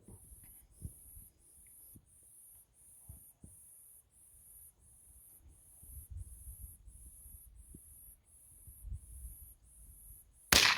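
A single .22 LR rifle shot from a CBC 8122, sharp and loud, near the end, over low wind rumble on the microphone and a faint high chirping pulsing about twice a second.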